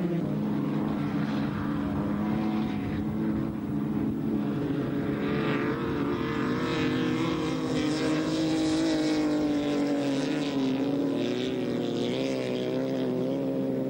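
Several race cars' engines running hard around an ice track, their pitches overlapping and rising and falling as the cars pass, with a long fall in pitch near the middle as one car goes by.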